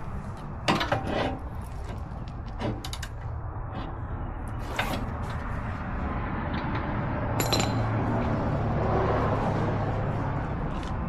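Hand tools clicking and clanking on metal as work goes on at a generator's spark plug, with several sharp knocks over a steady low hum.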